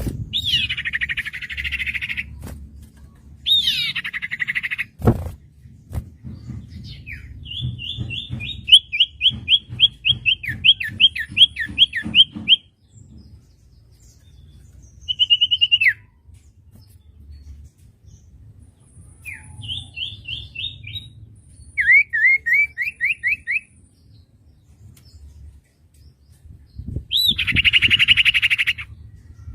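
Common iora (cipoh) calling: harsh, buzzing calls near the start and again near the end, with quick runs of sharp repeated whistled notes in between, about three a second, over a faint low rumble.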